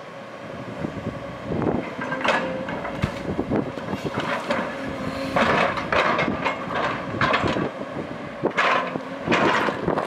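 JCB tracked excavator working: its diesel engine and hydraulics run while the steel bucket knocks and scrapes through rock and loose soil. There are steady knocks throughout, with louder scraping clatters about two, five and a half and nine seconds in.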